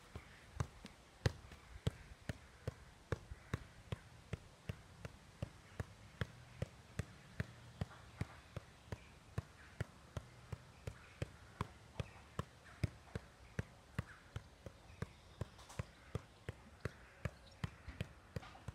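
A football being juggled on the foot in keepie-uppies: a steady run of short thuds of the ball against the boot, about two to three touches a second.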